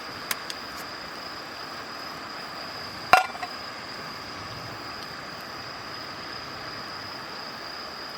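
One sharp metallic clink with a brief ring about three seconds in, over a steady high-pitched insect drone and a few faint crackles near the start.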